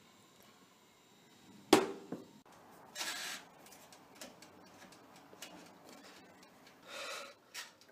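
A countertop toaster oven being loaded and set: a single sharp clunk a couple of seconds in as the lasagna tray goes in and the door shuts, then short rasps and small clicks as the control knobs are turned.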